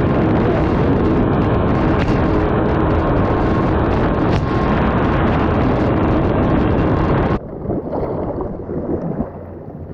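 Yamaha Superjet stand-up jet ski running flat out across the water, engine mixed with rushing wind and spray. About seven seconds in it cuts off suddenly to a much quieter low hum with water splashing.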